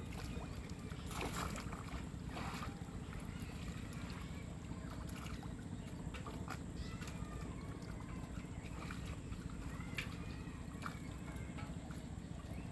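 Pond water sloshing and splashing, with two louder splashes about one and two and a half seconds in, over a steady low rumble.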